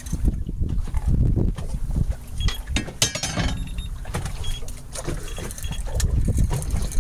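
Sounds aboard a fishing boat offshore: steady low rumble and wind buffeting the microphone, with scattered knocks and clicks and a louder rattle about three seconds in.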